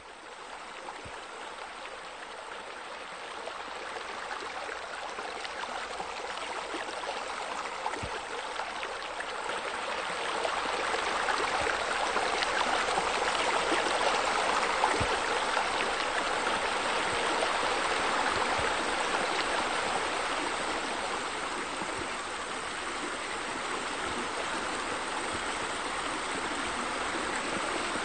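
Steady running and splashing water from pool water features, with sheer descents spilling into the pool. It grows louder about ten seconds in and eases slightly past twenty seconds.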